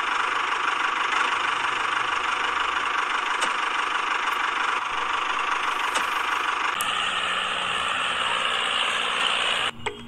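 Small electric motor and gearing of a handmade toy tractor running as it drives a loaded trolley, giving a steady whirr. About seven seconds in, the whirr changes tone and a low hum joins it. It cuts off suddenly near the end.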